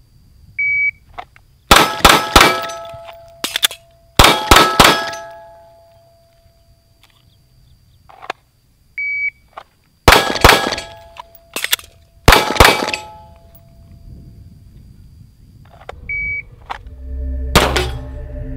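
Three short electronic shot-timer beeps, each followed about a second later by a SIG P320 9mm pistol firing quick strings of shots drawn from the holster, with steel targets ringing after the hits.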